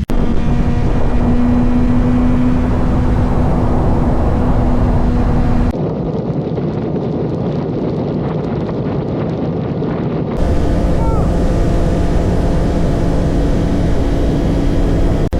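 CFMoto 675SS sport bike's inline-three engine running at a steady cruise, with heavy wind rush on the microphone. For a few seconds in the middle the sound turns duller and muffled, then clears again.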